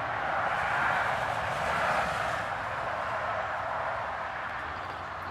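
Steady rushing noise of a passing vehicle, swelling and then slowly fading.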